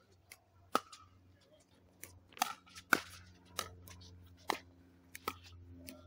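A pickleball rally: sharp, hollow pops of paddles striking the plastic ball, with the ball bouncing on the hard court, about eight pops at an uneven pace.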